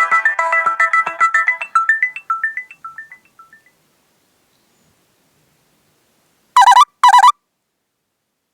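Nokia C2-01 mobile phone tones: a fast electronic ringtone melody of quick notes trails off in echoes over the first three or four seconds. After about three seconds of silence comes a short alert of two loud tones about half a second apart.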